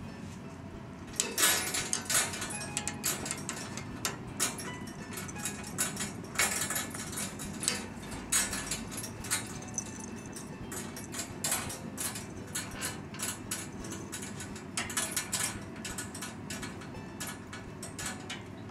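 Irregular light clicks and rattles from a wire pet cage, starting about a second in, as cats move inside it and brush against it.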